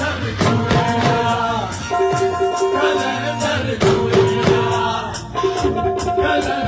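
Live dhol drumming, sharp strokes on a double-headed barrel drum in a quick, driving rhythm, over music with a singing voice and long held melody notes.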